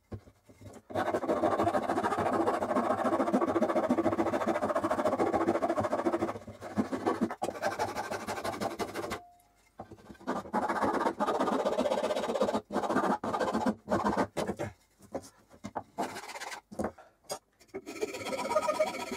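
A metal file rasping along a wooden hammer handle, first in a continuous run of strokes, then in shorter strokes with brief pauses between them.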